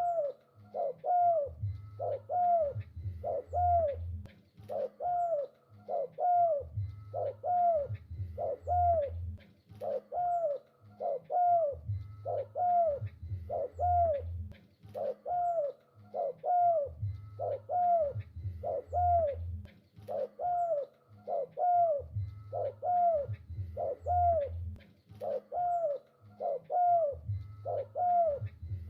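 Spotted dove (tekukur) cooing continuously: short arched coo notes repeated in an unbroken run, with deeper low coos under them.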